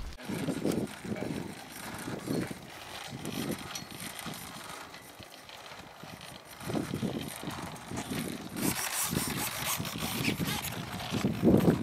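Faint, indistinct voices over outdoor background noise.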